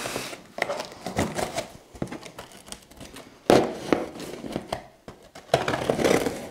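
Cardboard shipping box being opened by hand: packing tape pulling and tearing and the cardboard flaps scraping and rustling, in irregular bursts, the loudest about three and a half seconds in and again near the end.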